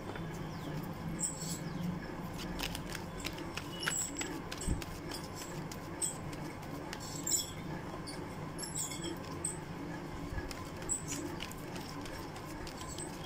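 A deck of tarot cards being shuffled by hand: soft, irregular clicks and slaps of card against card, over a steady low hum.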